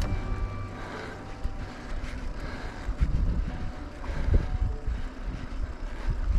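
Wind buffeting the microphone, a low rumble that rises and falls in gusts.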